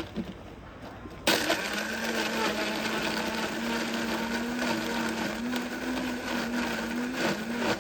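A small electric motor whirring steadily with a slightly wavering hum, coming in suddenly about a second in.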